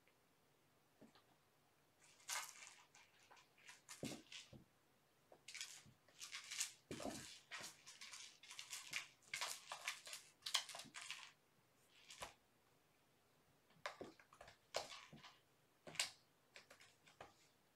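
Kittens playing, making irregular scratching and rustling noises with a couple of soft thumps.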